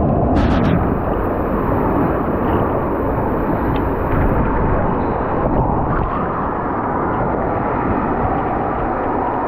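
Steady deep rushing of water and air as an inner tube slides down an enclosed waterslide.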